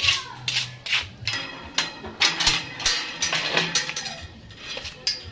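Footsteps while walking, short sharp steps about two a second.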